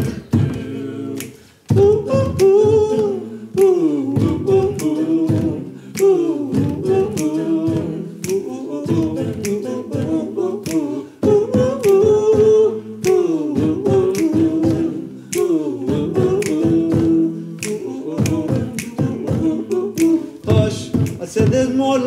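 Male a cappella group singing sustained, gliding close harmonies, with sharp beatboxed percussion clicking throughout.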